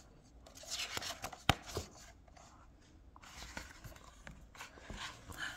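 A picture book's pages being handled and turned: faint paper rustling, with one sharp tap about one and a half seconds in.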